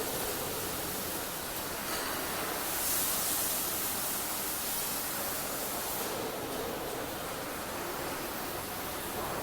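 Steady, even hiss-like background noise with no distinct machine rhythm or tone, briefly brighter in the highs around three to six seconds in.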